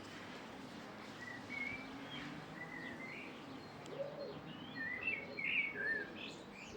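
Small birds chirping: a string of short, wavering calls starting about a second in and coming more thickly in the second half.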